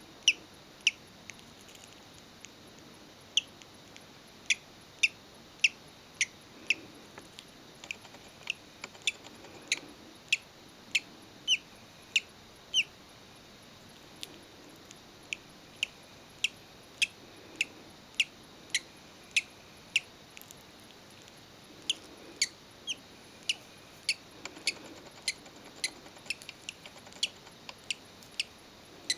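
Hatching budgerigar chick peeping: short, high cheeps, one or two a second, with a couple of brief pauses.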